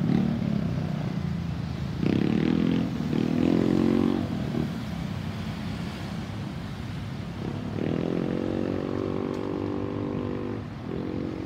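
Road vehicle engines pulling away in two runs, the first about two to four and a half seconds in, the second from about eight seconds on with a short break near eleven seconds, over a steady low rumble.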